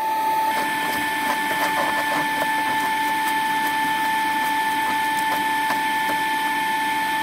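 Electric fan running steadily with a constant whine, under faint scattered scraping and cracking of rotten transom wood being pried off by hand.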